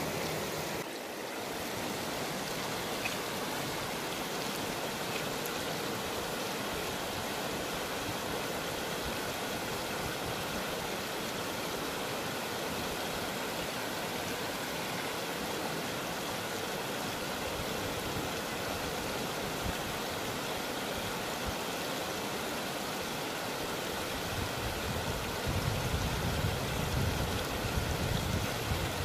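Shallow river rapids rushing steadily over rocks, with a low rumble rising over it from about 25 seconds in.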